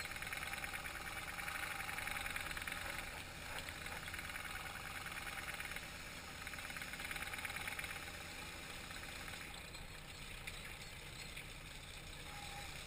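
Prawn trawler's engine running steadily, heard from the deck as an even, fast-pulsing mechanical hum, easing slightly in the last few seconds.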